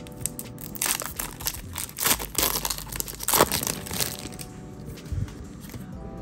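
Foil booster-pack wrapper crinkling and tearing as it is opened by hand: a run of sharp crackles for the first few seconds, the loudest about three and a half seconds in, then dying down.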